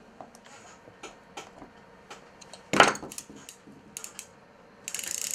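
Small clicks and taps of metal and plastic parts as a multiplier fishing reel is handled and taken apart on a workbench, with one louder knock about three seconds in and a scratchy rustle of parts rubbing near the end.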